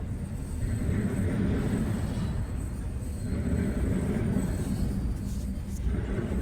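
Freight train rolling past: a steady low rumble of the cars on the rails, swelling and easing slightly.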